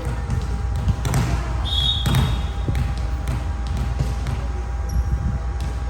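A volleyball game in play: the ball is struck and bounces several times as sharp hits over a steady low background rumble, with a brief high squeak about two seconds in.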